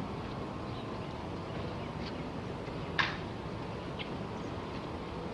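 Ceremonial rifle drill: one sharp click about three seconds in, with fainter ticks about a second before and after it, as the guards handle their rifles at port arms. Steady outdoor background hiss.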